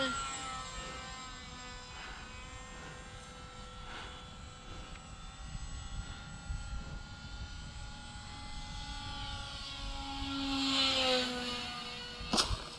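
Radio-controlled model airplane's motor and propeller whining overhead as a steady, multi-pitched drone. It grows louder as the plane passes close near the end, the pitch falling as it goes by, followed by one sharp click.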